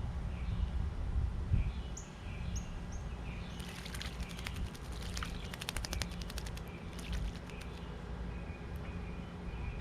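Small birds chirping at a bird bath, with a few seconds of rapid fluttering splashes in the middle as a bird bathes, beating its wings in the water. A steady low rumble runs underneath.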